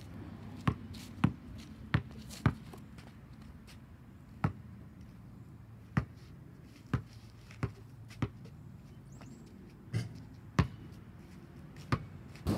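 A basketball bouncing on an asphalt driveway: about a dozen sharp, separate bounces at uneven intervals, quicker together in the first few seconds and sparser later.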